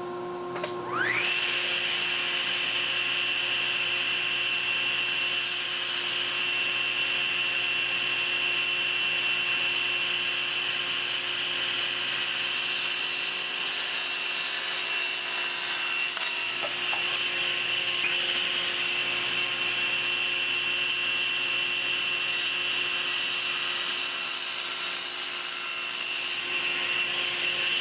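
Table saw motor starting with a whine that rises in pitch over about a second, then running steadily while boards are pushed through the blade on a miter gauge to trim their 45-degree mitred ends to a pencil line.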